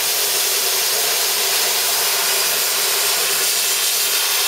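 P80 pilot-arc plasma torch cutting steel sheet, held by hand: the arc hisses loudly and steadily.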